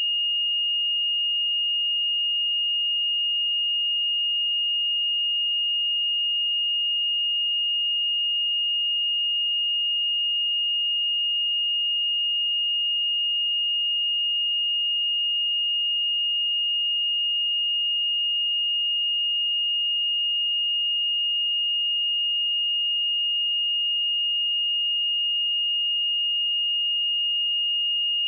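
A pure 2847 Hz sine-wave test tone, one steady high-pitched tone held at a constant level.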